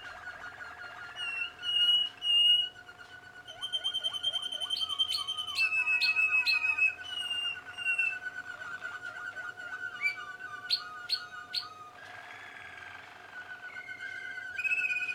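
Young Malinois Waterslager canaries singing, more than one at once: fast rolling trills and held whistled notes run together, with loud, sharp rising chirps in short bursts.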